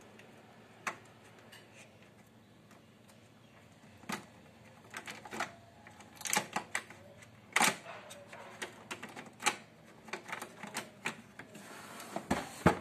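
Irregular plastic clicks, snaps and knocks from an HP LaserJet printer's casing being handled and opened by hand to get at its clutch, sparse at first and busier from about four seconds in, with a loud snap near the end.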